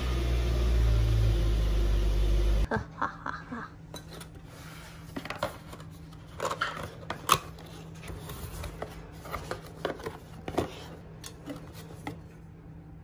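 A loud low rumble for the first couple of seconds that cuts off abruptly, then scattered light taps, clicks and knocks as a cardboard box of aluminium beer cans is opened and the cans are handled.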